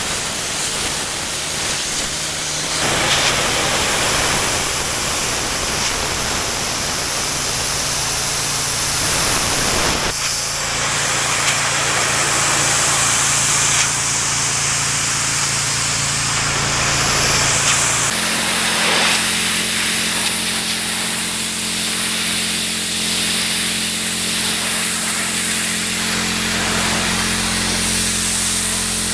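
Pressure washer jet blasting water onto patio stone: a loud, steady spray hiss with the machine's motor humming underneath. The sound changes abruptly about three, ten and eighteen seconds in.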